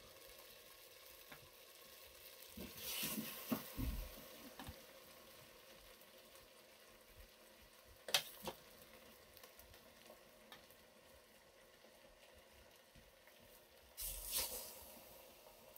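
Raw chicken pieces frying in hot oil in a pot: a faint steady sizzle that swells louder twice, about three seconds in and again near the end, as more pieces go into the pot. One sharp click about eight seconds in.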